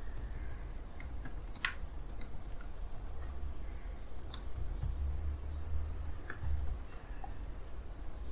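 Computer keyboard keys clicking, a scattering of separate key presses, most of them in the first two or three seconds and a few more later, over a low steady hum.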